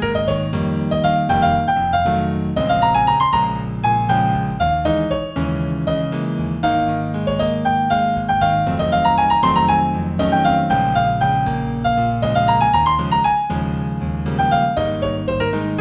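Solo piano music in A minor at a moderate tempo of about 118 beats a minute: a melody of short notes moving up and down over sustained low chords.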